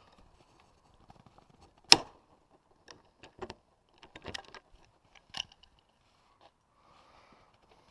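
Clicks and knocks of tools and small parts being handled: one sharp knock about two seconds in, then a scatter of lighter knocks.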